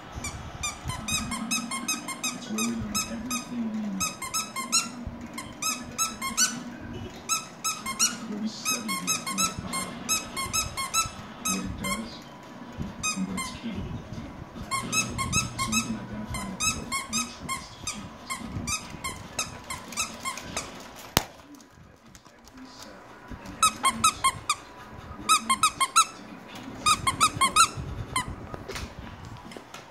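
Squeaky dog toy being chewed by puppies: quick runs of short, high squeaks, several a second, coming in bursts with short pauses and loudest in the last third. A single sharp click about two-thirds of the way through.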